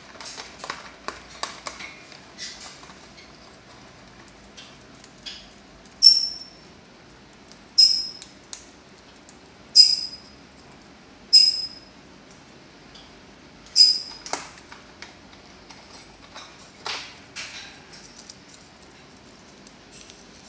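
A corella chewing and tearing at a cardboard box and paper straws with its beak: a steady run of small crunches and clicks. In the middle come five short, sharp, high-pitched sounds about two seconds apart.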